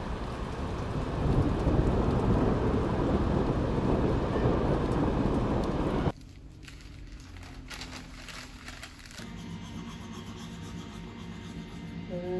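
A loud, steady rushing noise, rain-like, that cuts off abruptly about six seconds in. Quieter rustling of newspaper pages being handled follows.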